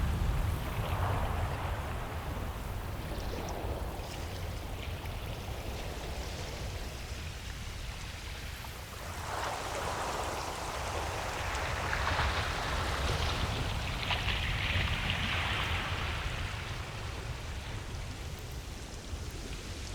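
Ocean waves washing onto a beach: a steady low rumble of surf, with a wave rising and falling about halfway through and another, hissier one a little later.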